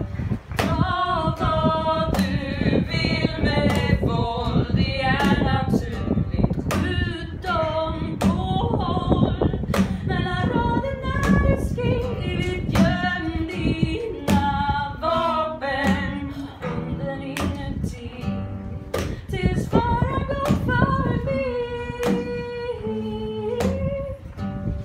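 A woman singing a song to her own strummed acoustic guitar, with the voice carrying long held notes over a steady strum.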